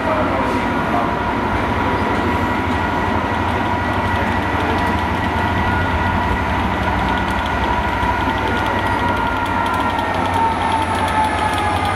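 Loco-hauled passenger train of coaches rolling slowly past, with a Class 67 diesel locomotive's two-stroke V12 engine giving a steady low drone. A whine sits over it and falls in pitch near the end, with light clicking of wheels over the rails in the later part.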